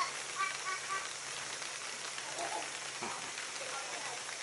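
Steady outdoor background hiss, with a few short high-pitched voice sounds in the first second.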